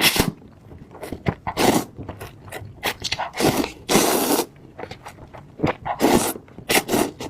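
Spicy noodles being eaten close to the microphone: irregular slurps and chewing, with short clicks and longer noisy pulls, the longest about halfway through.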